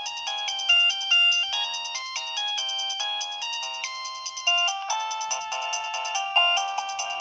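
A preloaded polyphonic ringtone on a Nokia 2125i cellphone playing a quick synthesized melody of short, rapidly changing notes. It sounds thin, with no bass at all.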